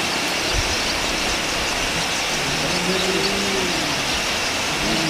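Steady, loud rushing noise, like wind or running water, with a faint voice briefly about three seconds in.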